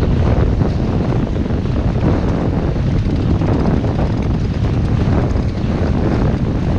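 Steady wind buffeting the microphone on a sailboat under way, a loud, even rumble heaviest in the low end.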